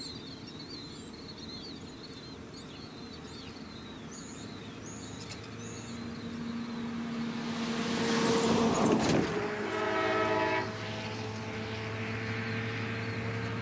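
Wheeling & Lake Erie diesel locomotive approaching, its engine drone growing louder, with birds chirping early on. About eight seconds in there is a loud rushing burst, followed by a short chord from the locomotive horn.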